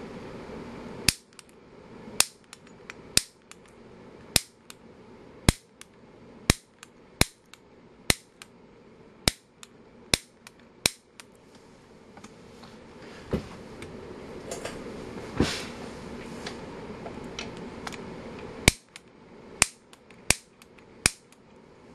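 Piezo grill ignitor being pressed over and over, each press a sharp snap as its spark discharges into a multimeter test lead. The snaps come about once a second for some ten seconds, then pause, with a few more near the end.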